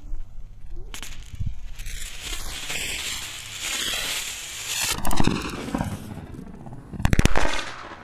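Homemade vape pro-tank rocket hissing as its accelerant ignites, then bursting with two loud bangs about two seconds apart, in slowed-down playback. It explodes instead of launching, which the maker puts down to too much accelerant and too small a hole in the bottom to vent it.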